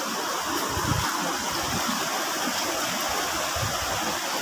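Steady rush of a shallow, rocky river flowing over stones, with a few low thumps about a second in and near the end.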